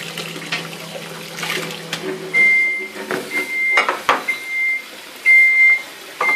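Dishes being hand-washed in a sink of soapy water: plates knocking and clinking against the sink as they are scrubbed with a sponge. From about two seconds in, a high electronic beep repeats about once a second, each beep about half a second long, louder than the washing.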